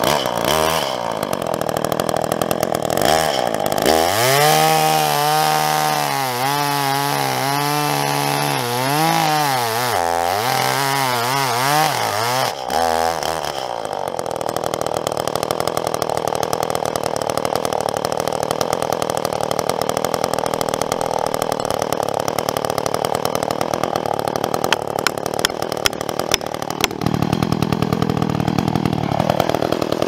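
Gas chainsaw running at high revs while cutting through a thick felled tree trunk, its engine pitch rising and falling as the chain works through the wood.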